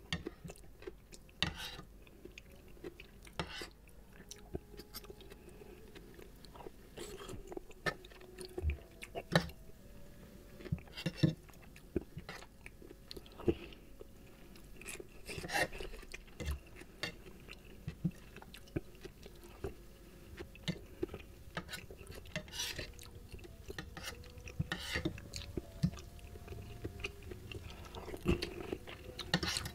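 Close-miked chewing of a mouthful of seblak, soft macaroni and kwetiau in sauce, with irregular short, sharp wet clicks of the mouth.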